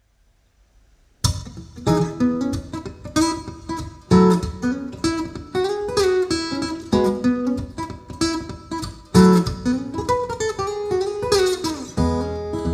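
Maton EMBW6 mini blackwood steel-string acoustic guitar, heard through its AP5 Pro pickup system, starting to play about a second in: chords struck roughly once a second, with notes sliding in pitch between several of them.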